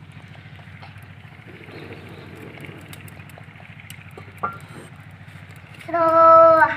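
A steady low engine-like drone in the background, with faint scattered crackles from a wood fire. Near the end a voice calls out loudly in one long held note.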